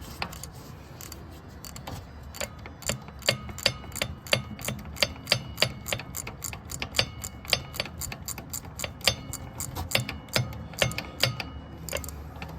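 Hand ratchet wrench with a 13 mm socket clicking steadily while turning a bolt, about three sharp clicks a second from about two seconds in.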